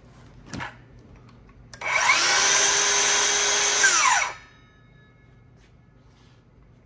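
DeWalt FlexVolt cordless circular saw triggered for about two seconds: the motor spins up with a rising whine, runs steadily, then winds down with a falling whine when released.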